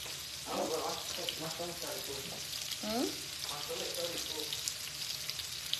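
Sliced onions frying on a stovetop griddle: a steady sizzle with faint crackles, under quieter voices.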